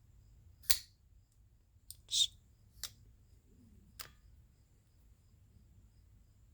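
Petrified Fish PF979 folding knife clicking as it is flipped open and closed: about five sharp clicks over a few seconds, the loudest about two seconds in.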